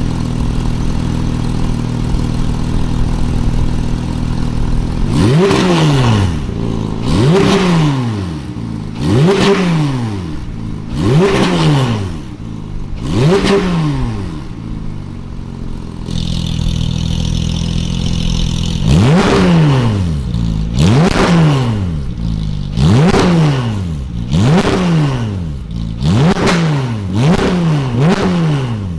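Porsche 991.2 GT3's naturally aspirated 4.0-litre flat-six, through an IPE titanium valvetronic full exhaust, idling and then revved in about a dozen quick blips, each jumping up in pitch and falling straight back to idle. The blips come in two runs, about two seconds apart, with a few seconds of idle between the runs.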